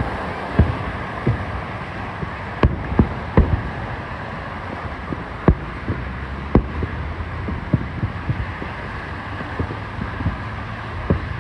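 Fireworks shells bursting in an irregular series of sharp booms, sometimes several within a second, over a steady background rush.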